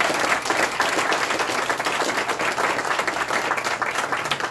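A small audience applauding: many hands clapping steadily, tapering off right at the end.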